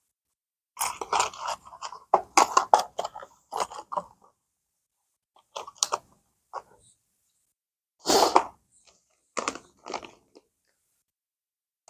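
Crinkling and rustling of lure packaging being handled and opened, in a series of short crackly bursts.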